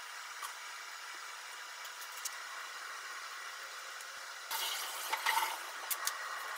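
Food sizzling steadily in a lidded frying pan. A few light clicks come through, and about two-thirds of the way in plastic packaging crinkles for a second or so.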